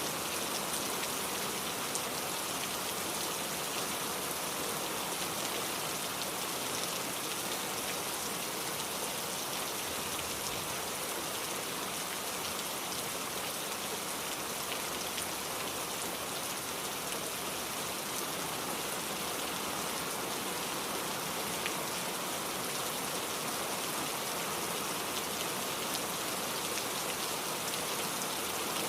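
Heavy rain falling steadily, a dense even hiss of drops pattering on surfaces.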